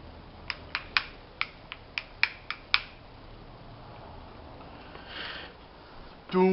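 A quick run of about nine sharp clicks, roughly four a second, then a short breathy hiss; a man's voice starts right at the end.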